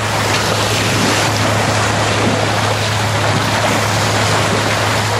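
Boat under way at sea: a steady rush of water and wind at the bow, with a low steady hum beneath it.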